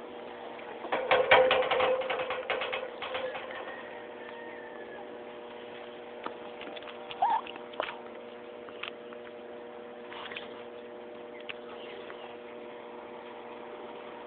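Handling noise from a phone held against a small dog: a burst of rustling and clicking about a second in, then scattered faint clicks and one short chirp, over a steady hum.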